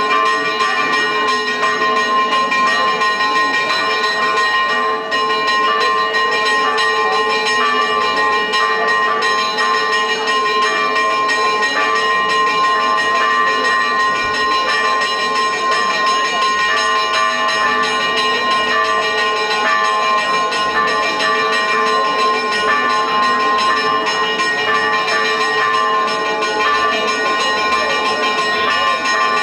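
Church bells ringing continuously, several tones sounding together.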